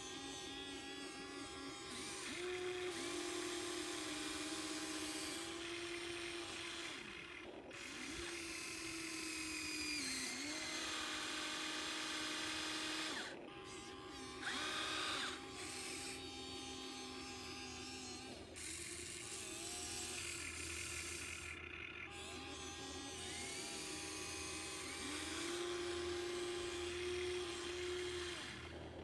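Small electric motors of a radio-controlled model excavator whining as it works, the pitch stepping up and down as the motors change speed and load. A short, louder, higher whine comes about halfway through.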